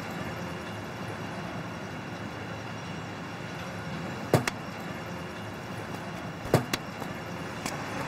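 Steady background noise with a sharp knock about four seconds in and two more close together about two seconds later.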